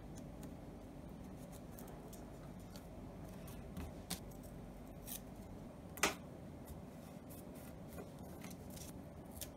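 Scissors snipping washi tape into small pieces: a few short sharp cuts, the loudest about six seconds in.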